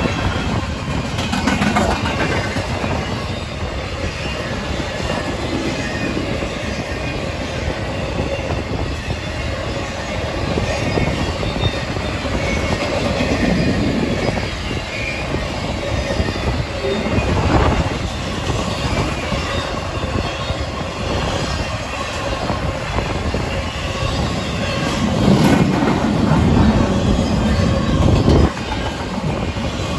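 Intermodal freight train rolling past, its steel wheels clacking over rail joints and squealing on the rails, with wind buffeting the phone's microphone.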